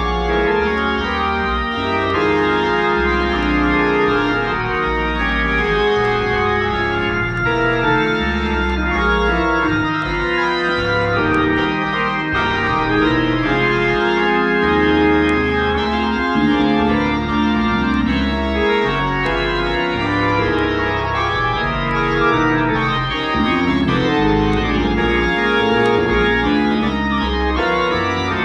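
Organ sound played on an electronic keyboard: sustained chords over a bass line that changes every second or so.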